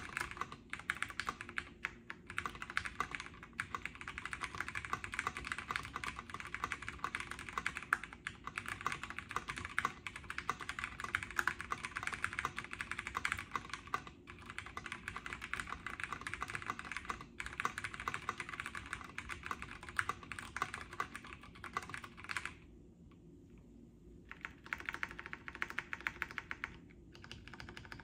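Fast typing on an OTD 356N MKII mechanical keyboard fitted with vintage Cherry MX Brown switches, POM keycaps and a polycarbonate half plate, with a vintage Cherry tactile grey switch under the spacebar: a dense, steady stream of keystrokes that breaks off for about two seconds near the end, then resumes.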